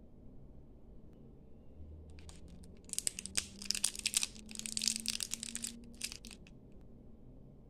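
A shiny plastic candy wrapper crinkling as fingers twist it open and pull it off a hard apple candy. The crackling starts about two seconds in, is loudest over the middle stretch, and stops about six seconds in.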